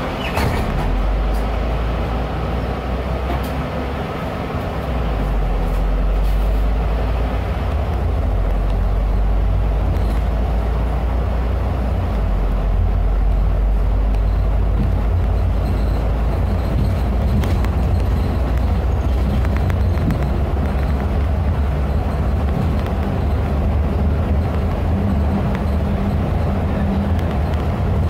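Inside a Neobus Mega BRT bus under way: its engine drones low and steady over road noise, and it grows louder about five seconds in.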